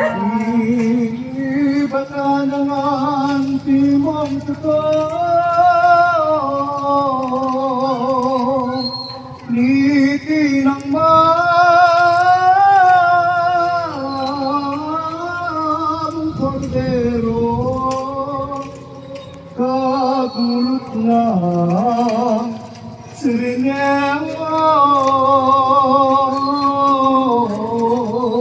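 Background music: a voice singing long, held notes with a wavering vibrato over a steady low accompaniment, in phrases with short breaks between them.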